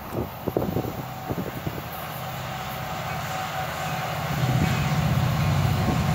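Approaching CSX freight led by SD70MAC diesel-electric locomotives, their two-stroke EMD 16-cylinder engines giving a low, steady rumble that grows steadily louder as the train nears. A few sharp clicks sound in the first two seconds.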